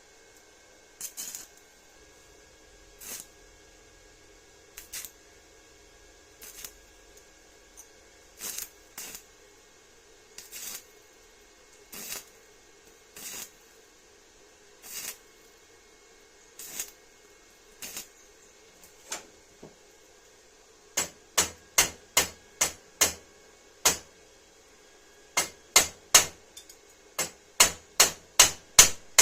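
Sharp taps of hand-tool work: single taps every second or two, then from about 21 seconds in a louder, quicker run of taps, roughly two a second, with a short pause near 25 seconds.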